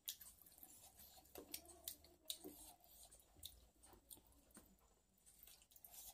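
Quiet eating sounds: chewing and soft, irregular mouth clicks, with fingers mixing rice on a steel plate.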